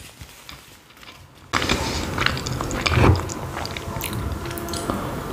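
Close-miked eating sounds: chewing soft khinkali dumplings in cream sauce, quiet at first and much louder from about a second and a half in, with a single loud knock about three seconds in, then drinking from a glass of water.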